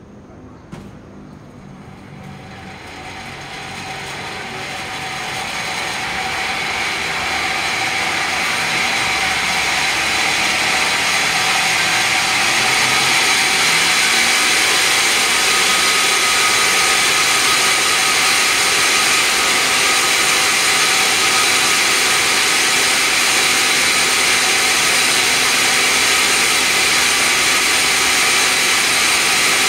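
Large sawmill band saw running, with a short click about a second in. Its hiss and high whine build over roughly the first ten seconds, then hold steady and loud.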